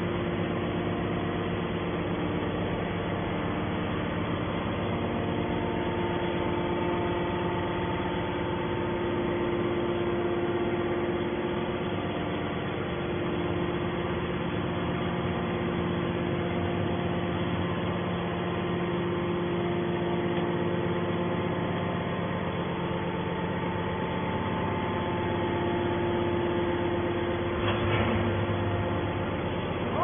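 Hydraulic power unit of a Y81-250 scrap metal baler running steadily, a constant machine hum with several fixed tones. A brief knock about two seconds before the end.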